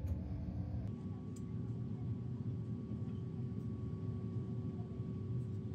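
Steady low hum and rumble of workshop machinery, joined about a second in by a steady mid-pitched tone, with a few faint clicks.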